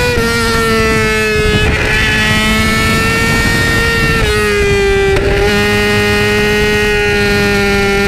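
A 2008 Yamaha R6's inline-four engine with an Akrapovic megaphone exhaust runs hard at high revs under riding load. Its pitch eases down slowly, drops suddenly about four seconds in, and breaks off briefly about a second later before holding steady again.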